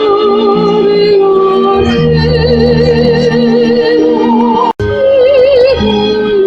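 A soprano singing an operatic piece with a wide vibrato over held chords from an instrumental accompaniment. The sound drops out for a split second a little past the middle.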